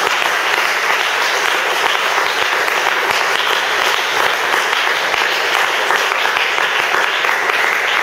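Congregation clapping: steady, sustained applause from many hands.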